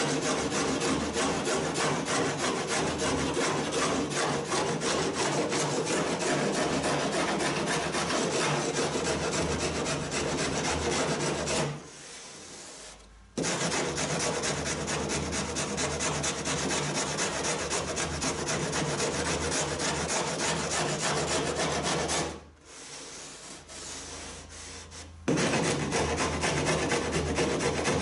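Stanley Surform rasp filing along the cut edge of a cedar-strip and fiberglass kayak deck in quick back-and-forth strokes, smoothing and squaring the freshly cut cockpit opening. The strokes stop twice, briefly about twelve seconds in and for a few seconds later on.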